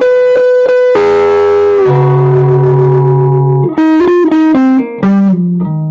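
Electric guitar lead lines with a little overdrive, played on the neck pickup of a homemade guitar with handmade Alnico pickups through a Peavey Classic 50 amp. A note bends up and is held, a lower note rings out long, then a quicker run of notes follows near the end.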